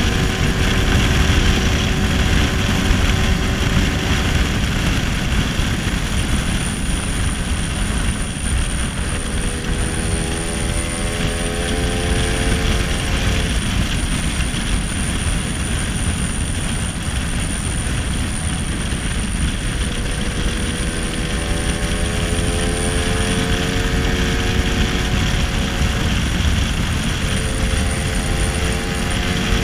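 A 1966 Lambretta SX scooter's two-stroke single-cylinder engine, fitted with a 225 Mugello kit, running at road speed. Its pitch rises and falls a few times as the rider opens and eases the throttle, under heavy wind rumble on the microphone.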